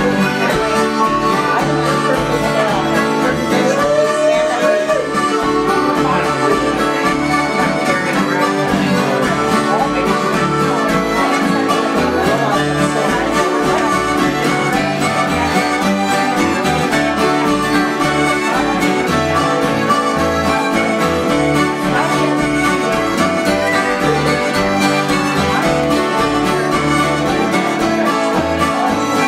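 Live acoustic country-style tune played on several strummed acoustic guitars with a fiddle.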